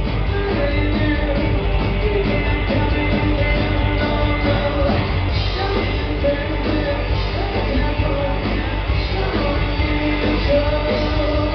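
Live rockabilly band playing loud and without a break: hollow-body electric guitar, upright bass and drums, with a man singing, recorded from the audience with a heavy, boomy low end.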